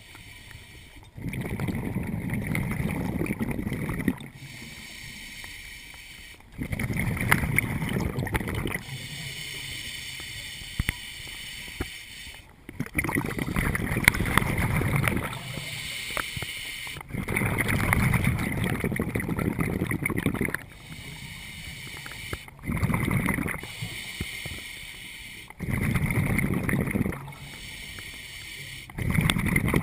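A scuba diver breathing through a regulator underwater: loud bubbling exhalations of one to three seconds, about every five seconds, with a quieter inhalation hiss between them.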